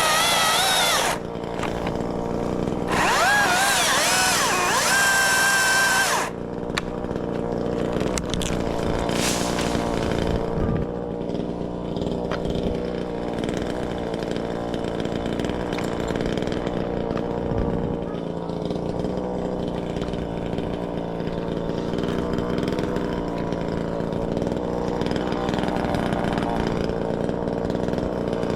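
Chainsaw cutting wood, loud with its pitch wavering as the revs change in two spells over the first six seconds, then running on more quietly and steadily.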